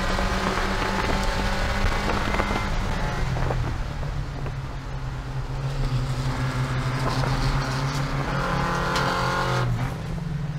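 Porsche 944 Spec race car's four-cylinder engine running hard under racing load, over loud road and wind noise. The engine note steps down a few seconds in and climbs again near the end as the car shifts and accelerates.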